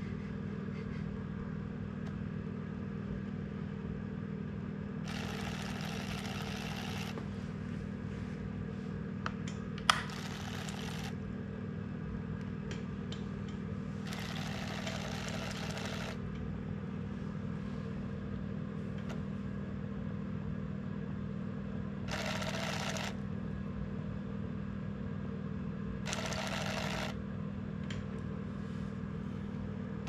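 A tiny 816 coreless DC motor runs steadily with a constant whir, spinning a fishing lure's wing blades in a bucket of water. Several times the whir is joined by a second or two of water splashing and churning. A sharp click about ten seconds in is the loudest sound.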